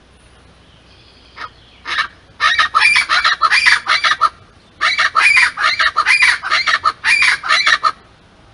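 A pair of scaled chachalacas calling in a loud, harsh, rapidly repeated chorus. A faint note comes first, then two bouts of calls, about two and three seconds long, with a short break between.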